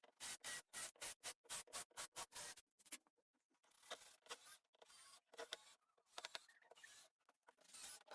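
Quiet, fast scraping or rubbing strokes, about five a second, stopping after about two and a half seconds; after a short pause come slower, irregular scrapes with sharp clicks.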